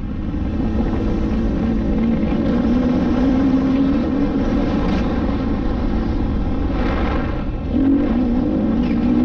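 KTM EXC-F 250 four-stroke single-cylinder dirt bike engine running under way on a dirt track, revs rising and falling with the throttle; the engine eases off briefly near the start and again around seven seconds in, then revs up again about eight seconds in.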